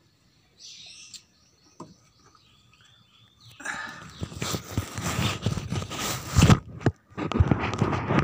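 Faint bird chirps, then, starting about three and a half seconds in, a loud rough noise with dull thumps lasting about three seconds. After a short break a second burst of it follows near the end.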